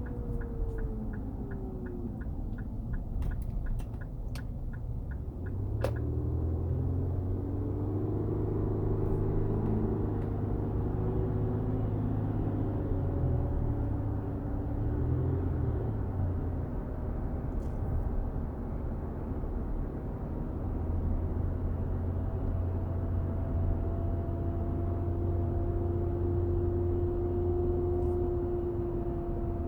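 Cabin sound of a 2014 Infiniti QX60 on the move: a steady low hum with a droning tone, the humming/grinding noise the owner is trying to diagnose. A fast, regular ticking runs for the first few seconds, then stops with a click.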